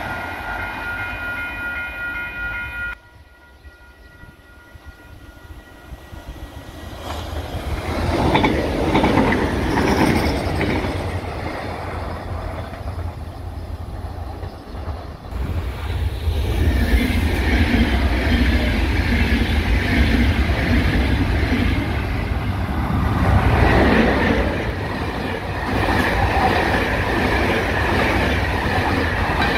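Electric passenger trains running past one after another. First comes the tail of a Class 4000 Alfa Pendular tilting train. Then a Class 2240 regional electric multiple unit swells up as it approaches, and finally a loud, sustained pass-by of a Class 5600-hauled Intercidades train whose coaches rumble past.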